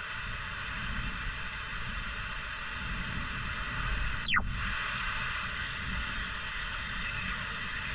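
Steady hiss of band static from a CRT SS 9900 transceiver receiving in upper sideband, with no station coming through. About four seconds in, a single quick whistle falls sharply in pitch.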